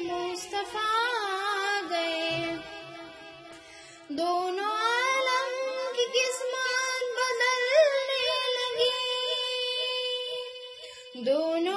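A high voice singing a naat in long, ornamented held notes. One phrase fades away about three seconds in, a new phrase rises at about four seconds and is held with small turns, and another phrase begins near the end.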